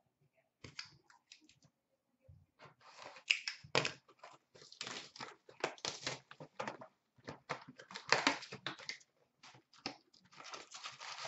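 A box of hockey trading cards being unwrapped and torn open by hand, with irregular crinkling, rustling and tearing of wrapper and cardboard, and the packs inside rustling as they are handled. The noises are sparse at first and come thick and fast from about three seconds in.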